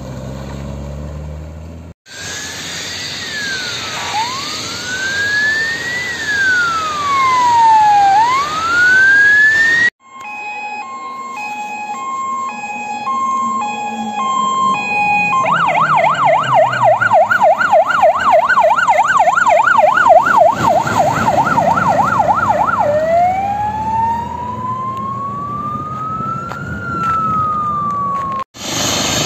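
Fire service vehicles' sirens on emergency runs, in several short cuts: a wail sweeping up and down every couple of seconds, then a stepped pattern of alternating tones, then a fast yelp of about four cycles a second, then a slow rising and falling wail. The first two seconds hold only a vehicle passing, with no siren.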